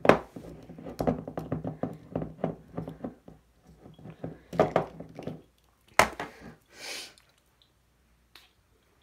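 A glass perfume bottle is handled and set down on a cluttered dresser, making a run of small clicks and knocks. About six seconds in comes a sharp click, then a spray hiss of about a second from the bottle's atomiser.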